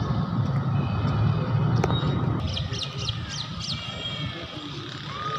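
A low rumble that eases off about halfway through, then birds chirping in quick, repeated calls with thin whistled notes.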